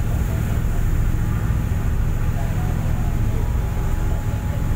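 Steady low rumble on the open deck of a moving passenger ship: wind buffeting the microphone, mixed with the ship's engine and the rush of the sea.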